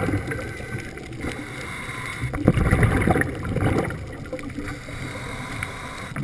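Muffled underwater noise through a camera's waterproof housing: a low rumble with bubbling from scuba divers' exhaled air, and a sharp knock about two and a half seconds in.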